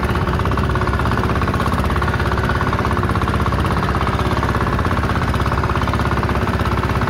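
Fishing boat's engine running steadily under way, a fast, even chugging.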